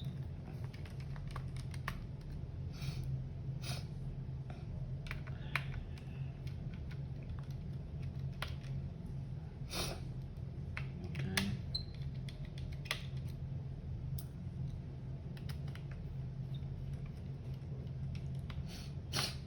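Irregular small clicks and taps of a screwdriver and handling on the underside of a laptop as its screws are taken out, over a steady low hum.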